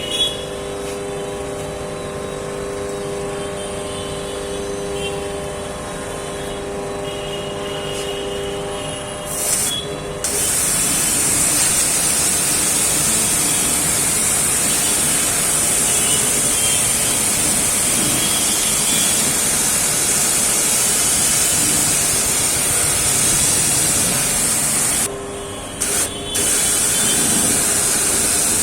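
Blackstone 1500 PSI single-phase electric pressure washer running with a steady motor-and-pump hum. About ten seconds in, a loud high-pressure water spray hiss takes over. It cuts out briefly twice near the end and then resumes.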